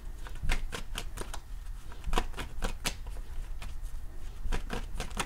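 A deck of tarot cards being shuffled by hand: quick, crisp card snaps and flicks that come in bunches, with a faint low hum underneath.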